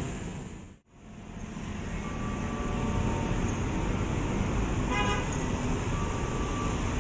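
Short horn toot from an approaching KRL electric commuter train, about five seconds in, over steady outdoor background noise. The sound dips to silence for a moment just under a second in, then comes back.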